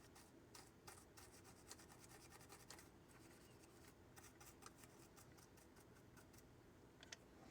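Near silence with faint, scattered small clicks and scratches from handling a circuit board and small tools on a workbench.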